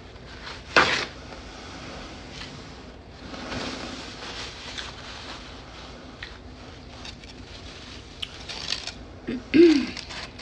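Close-miked eating of fried catfish: bites, chewing and small clicks of cutlery or a food container, with a sharp crunch about a second in. Near the end comes a short low vocal sound falling in pitch, the loudest moment.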